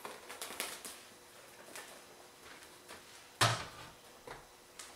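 A freshly baked loaf being turned out of a stoneware baking dish onto a wire cooling rack: a few light knocks, then one sharp thud about three and a half seconds in, followed by two softer knocks.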